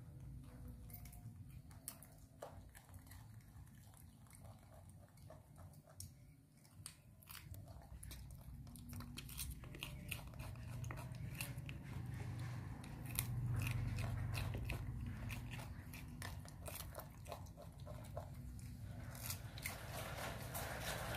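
Baby macaques biting and chewing raw cucumber and carrot: a run of small crisp crunches and mouth clicks, sparse at first and coming thick and fast through the second half, over a low steady hum.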